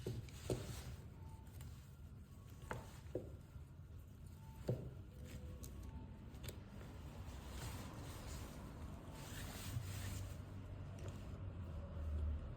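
Light clicks and taps of small repair tools and parts being handled on an iPhone XR, a few sharper ticks spread through, over a steady low hum.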